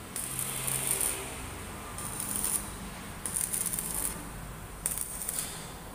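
Electric arc welder crackling in four short bursts, each half a second to a second long, as a weld is laid onto a seized bolt on the engine so that it can be freed.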